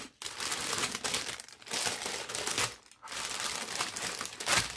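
Clear plastic parts bags of a Lego Technic set crinkling and rustling as they are handled and laid out on a table, in three or four spells with short pauses between.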